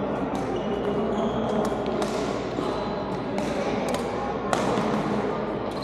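Badminton rackets hitting shuttlecocks and players' footsteps on a synthetic court floor, echoing in a large sports hall, with a few short high shoe squeaks.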